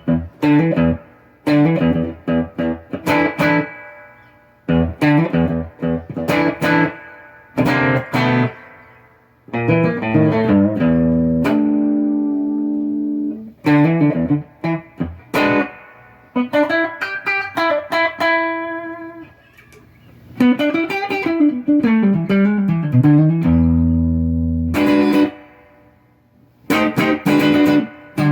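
Vintage hollow-body electric guitar played clean as a test of its newly fitted electronics: bursts of strummed chords and short picked phrases with brief pauses, some chords left ringing. About two-thirds of the way in, the notes slide down and back up in pitch.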